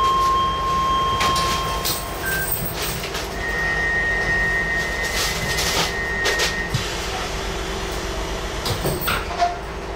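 Docklands Light Railway train standing at a station with its doors closing: a steady electronic warning tone of about two seconds, then a higher one of about three seconds, with clicks and clunks from the sliding doors over the train's steady hum.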